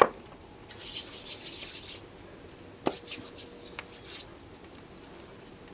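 A sharp click, then Vaseline Spray and Go continuous-spray moisturizer hissing from its aerosol can for a little over a second, followed by a second click and the faint rubbing of hands working the lotion into the skin.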